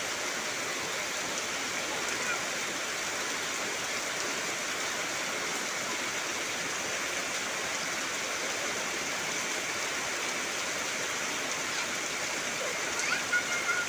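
Heavy rain falling steadily, an even hiss with no breaks. Near the end a short, wavering high call sounds over it.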